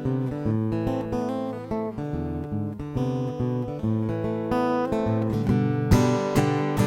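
Acoustic guitar played instrumentally, a busy run of picked notes and strummed chords with no singing.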